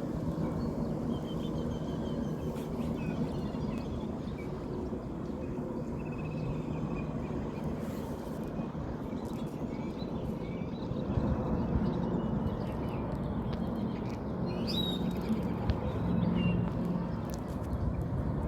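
Steady low hum of a running motor, growing a little louder about two-thirds through, with scattered faint bird chirps above it.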